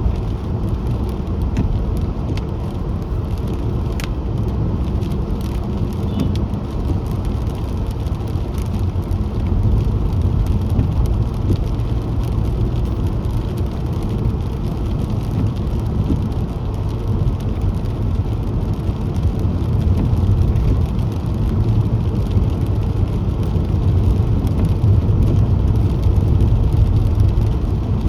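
Car on the move: a steady low rumble of road and engine noise, with a few faint clicks on top.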